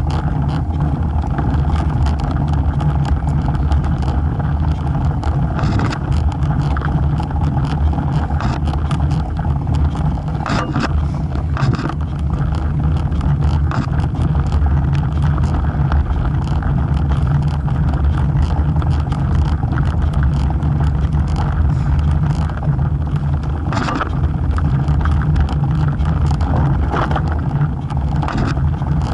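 Steady low rumble of a road bicycle riding on asphalt, picked up by a camera mounted on the bike: tyre and frame vibration with wind on the microphone, broken by a few short knocks from bumps in the road.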